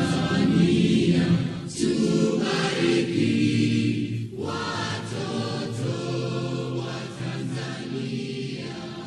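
Background music of a choir singing, fading out near the end.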